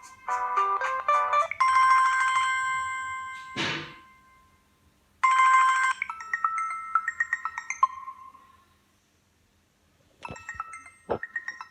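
Samsung Galaxy Y ringtones played one after another. First a quick melodic run of electronic tones ends in a held chord with a whoosh about four seconds in. After a short pause a chime rings out and fades, and another tone begins near the end.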